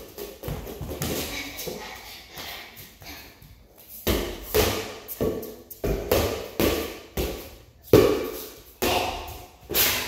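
Rubber playground ball being whacked by hand and bouncing off a concrete floor and walls: a string of irregular thuds, each ringing with the echo of a large empty hall. From about four seconds in the thuds come quicker, about two a second.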